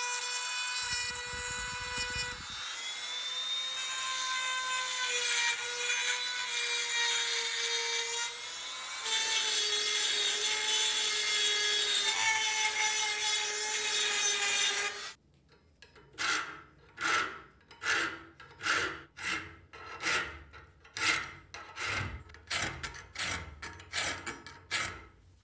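Rotary tool with a small grinding stone running against the cast wrench, a steady high whine, grinding off casting marks. About fifteen seconds in it gives way to a hand file rasping across the jaw's teeth in regular strokes, about two a second, to repair them.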